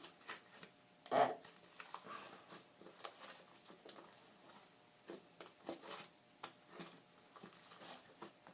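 Fluffy slime made from glue, shaving cream and liquid starch being stretched and folded by hand: soft, irregular sticky clicks and squelches, with the loudest squelch about a second in.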